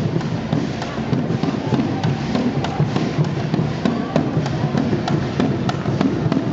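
Chinese lion dance drum beaten with sticks in a fast, continuous roll of beats, with regular sharp clacks about twice a second over it.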